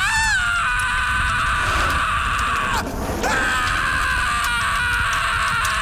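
A man's long, drawn-out, high-pitched scream, voice-acted, with a short break for breath about three seconds in before it carries on.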